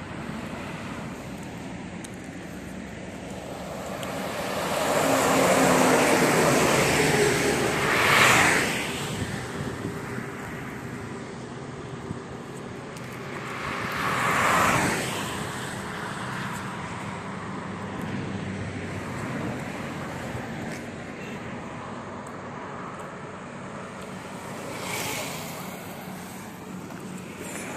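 Traffic passing on a highway: a long, loud vehicle pass peaking about eight seconds in, a car passing about fourteen seconds in, and a fainter motorcycle pass near the end, over steady road noise.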